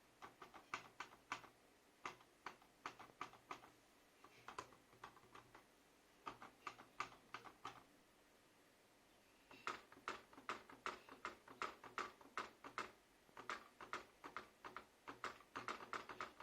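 Wobbly wrist rest of a Monster Pusat K3 Pro keyboard rocking on its uneven feet, clacking against the desk in quick runs of light clicks with short pauses, the runs coming thicker near the end. The rocking shows the wrist rest does not sit level.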